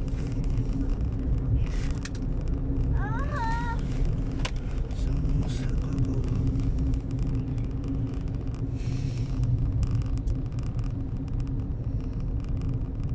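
Road noise inside a moving car: a steady engine hum over a low rumble of tyres on the road. A brief wavering high-pitched sound comes about three seconds in, and a sharp click about a second later.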